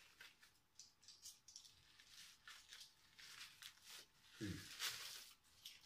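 Faint crinkling and rustling of clear plastic packaging being handled and pulled open by hand, with a brief murmured vocal sound about four and a half seconds in.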